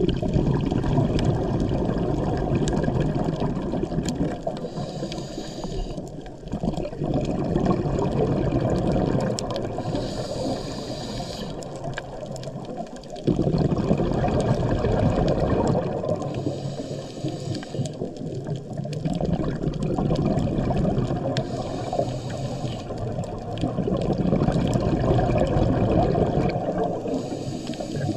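A scuba diver breathing through a regulator underwater: a short hiss on each inhale about every five to six seconds, between rumbling, gurgling bursts of exhaled bubbles.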